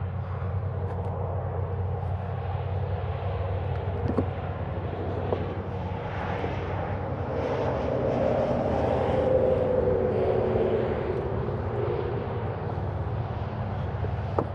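A propeller airplane passing over: a droning tone swells up from the middle, peaks and slowly falls in pitch as it fades, over a steady low rumble.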